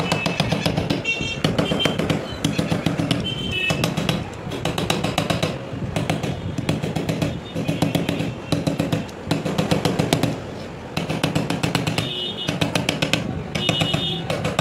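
Rapid, light hammer taps on a silver ring held in a wooden ring clamp, coming in bursts of quick strikes, with background music playing.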